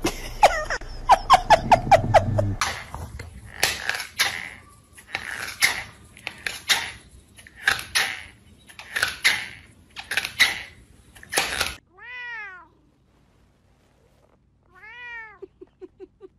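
Cats calling: first a quick run of short high cries, then a run of harsh, noisy sounds about once a second, then two long meows that rise and fall in pitch, the second trailing into a quick string of short pulses.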